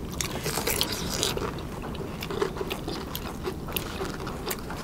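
Pani puri being eaten: crisp fried puri shells crunching and being chewed, many short crackles.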